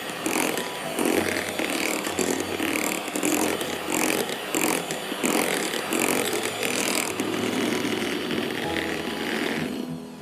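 Electric hand mixer running, its twin beaters whipping a thick cream mousse in a glass bowl, the sound rising and falling in a pulsing way as the beaters are moved through the mixture. It dies away near the end.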